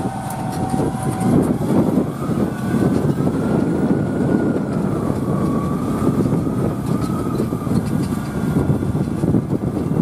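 Deutz-Fahr Agrotron 7250 TTV tractor's six-cylinder diesel running steadily under load while pulling a five-furrow mounted plough through the soil. A high whine sits over the engine, rising in pitch about a second and a half in and then wavering.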